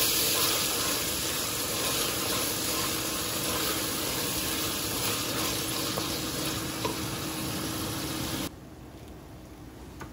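Onions, green chillies and chilli, soy and tomato sauces sizzling as they fry in oil in a steel pot, stirred with a wooden spatula. The sizzle drops abruptly to a much quieter level near the end.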